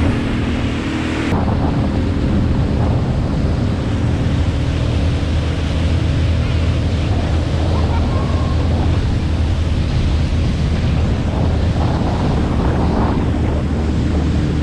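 Sea-Doo Spark jet ski running under way, its engine drone buried in wind buffeting the microphone and the rush of water spray off the hull. The mix stays loud and steady.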